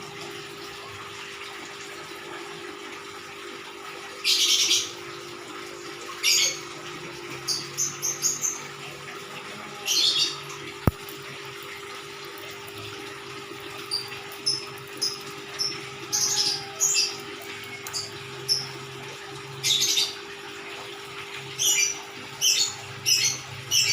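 Small birds chirping in short, high-pitched bursts that come in scattered clusters, over a steady low hum, with a single sharp click about 11 seconds in.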